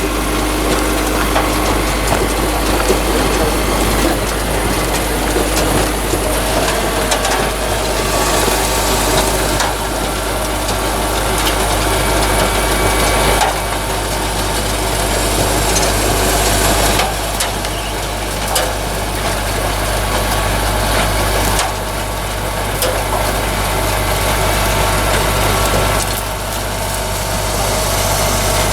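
A large potato-harvesting machine's engine running steadily, with scattered clattering and knocking from the working machinery.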